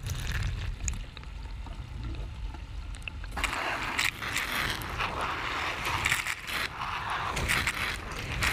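Kitchen tap water pouring onto raspberries in a colander, splashing and gurgling close up; about three seconds in the splash turns louder and hissier.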